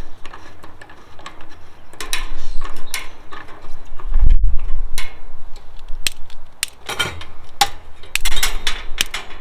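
Scattered clicks and metallic rattling as a Kero-Sun Omni 85 kerosene heater is handled and lit by hand with a barbecue lighter, with a low thump about four seconds in.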